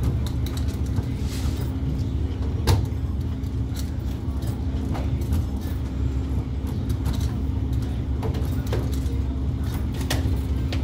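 Steady low hum of commercial laundromat washers and dryers running, with a constant tone through it. A few sharp clicks and knocks stand out, the loudest about three seconds in.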